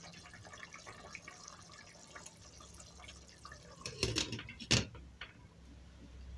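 Spinach and minced-meat stew simmering in a stainless steel pot, a faint crackle of small bubbles. About four seconds in, a glass lid knocks twice against the pot as it is set on.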